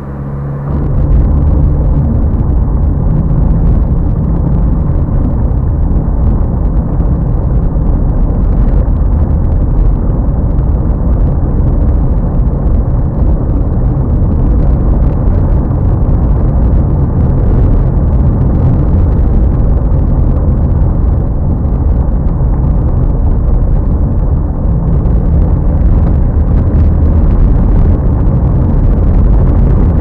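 A car driving over a cobblestone street, heard from inside the cabin: a loud, steady rumble of the tyres on the paving stones that sets in suddenly about a second in.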